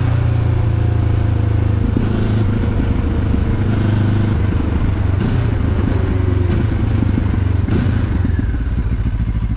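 QJMotor SRT 700 parallel-twin motorcycle engine running steadily while riding, heard from the saddle. Its note eases off near the end as the bike slows.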